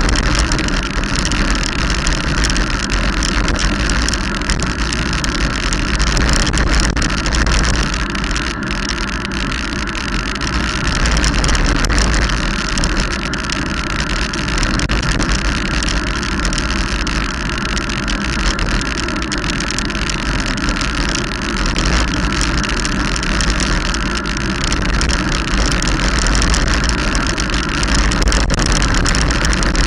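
Steady wind rush buffeting the microphone of a camera moving fast downhill, with tyre hiss on wet tarmac; the level swells gently now and then.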